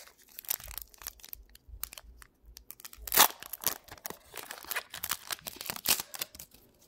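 Pokémon trading card booster pack's foil wrapper being torn open by hand, crinkling and crackling throughout, with one louder tear about three seconds in.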